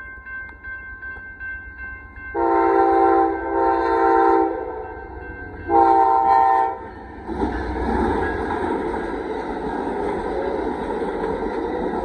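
Amtrak passenger locomotive 55's multi-note air horn sounds two long blasts back to back, then a shorter one. Right after, the Texas Eagle train passes close by with a steady loud rush of wheel and engine noise.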